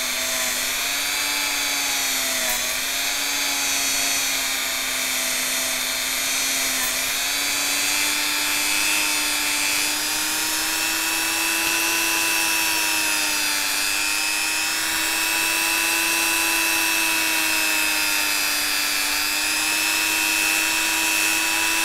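Handheld rotary tool spinning a felt polishing bob loaded with compound, pressed lightly against a stainless steel watch case. The motor runs with a steady hum and high whine; its pitch dips slightly a couple of times under contact, then holds a little higher.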